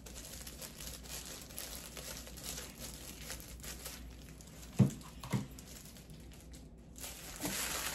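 Thin plastic packaging bag crinkling and rustling as it is cut and pulled open with scissors. About halfway through, two sharp knocks come half a second apart; these are the loudest sounds.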